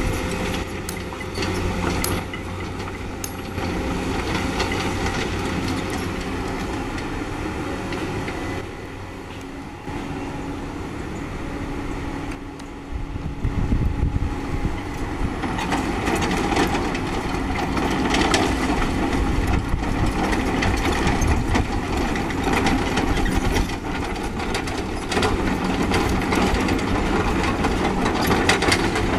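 Caterpillar 320D excavator's diesel engine running, with the steel tracks clanking and rattling over stony ground as the machine travels. It gets louder and more clattery a little under halfway through.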